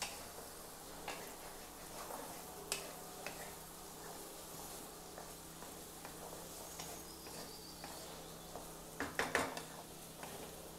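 Wooden spatula stirring diced bottle gourd in a kadai, with light scrapes and taps against the pan over a faint sizzle of the pieces cooking in oil. A few louder knocks come about nine seconds in.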